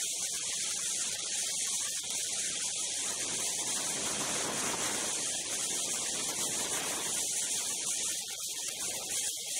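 Steady rushing hiss of a snowmobile riding at speed: wind and snow noise on the camera, with no distinct engine note.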